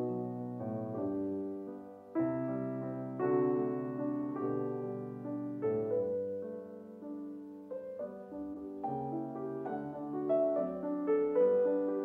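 Background piano music: a slow, gentle piece of single notes and chords.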